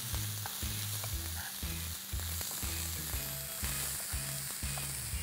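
Mixed vegetables (corn, carrots, French beans and celery) sizzling steadily in hot oil in a non-stick frying pan as a wooden spatula stirs them, with light scattered clicks of the spatula against the pan.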